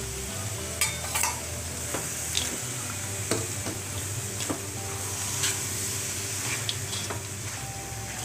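A slotted metal spatula stirring and tossing a stir-fry of chicken, egg and vegetables in a large metal wok, scraping and knocking against the pan about ten times, over a steady frying sizzle.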